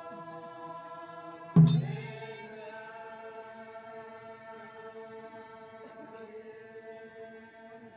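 A dance troupe chanting together in unison, holding long steady notes. About a second and a half in there is one sudden loud accent, after which the chant goes on more softly.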